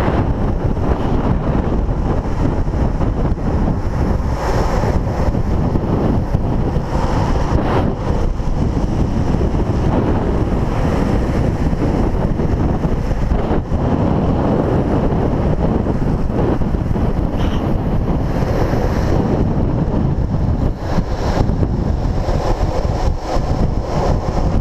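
Loud, steady wind rushing over an action camera's microphone at downhill longboarding speed, mixed with the low rolling rumble of urethane longboard wheels on asphalt.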